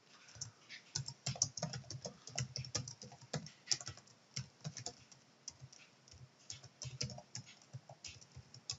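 Typing on a computer keyboard: a quick, irregular run of key clicks that thins out briefly around the middle.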